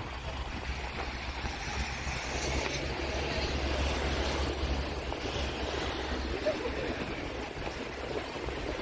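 Distant roar of an Airbus A380's four jet engines as the airliner climbs away after takeoff: a steady low rumble under a wide rushing noise, swelling slightly midway.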